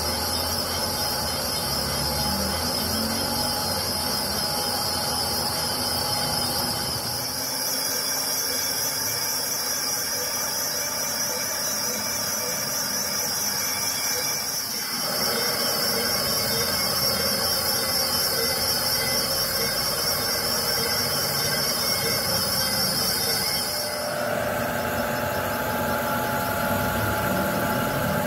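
Crankshaft grinder running, its abrasive wheel grinding the journals of a crankshaft that turns in the chuck. It makes a steady, high, wavering whine over machine noise, and the sound changes abruptly a few times.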